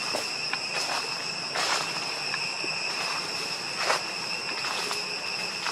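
Insects droning steadily in two high, unchanging tones. Dry leaf litter crunches underfoot as someone walks, loudest twice, about a second and a half and four seconds in.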